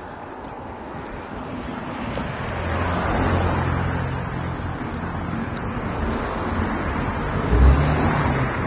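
Road traffic: cars passing close by, their tyre and engine noise swelling about three seconds in and again near the end.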